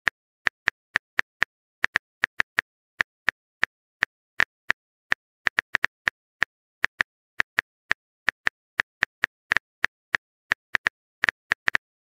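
Phone keyboard typing sound effect: short, sharp taps at an uneven pace of about four a second, as a text message is typed out.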